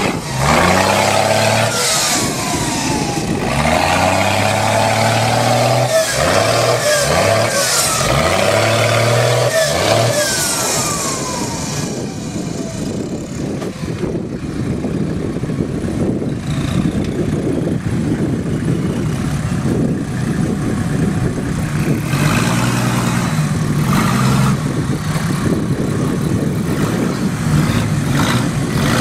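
Engine of a small off-road 4x4 revving up and down repeatedly under load as it crawls up a rubble pile. A whine falls in pitch several times in the first ten seconds or so. The engine runs lower and rougher in the middle and revs again near the end.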